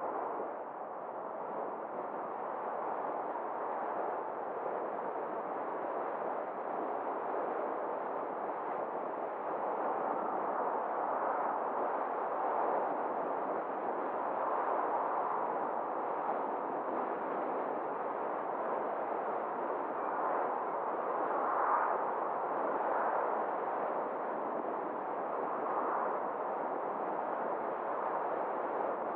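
Steady road and wind noise of a moving car: an even rushing hiss that swells and eases slightly, with no engine note or other distinct sound standing out.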